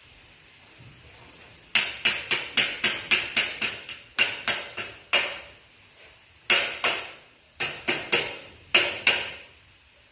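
Rapid hammer strikes on an aluminium window profile, in quick runs of several blows at about four a second, each with a short metallic ring. The strikes begin a couple of seconds in, with pauses between the runs.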